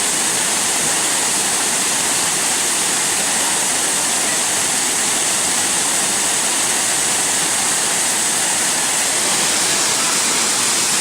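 Waterfall pouring: a steady, loud rush of falling water that holds even throughout.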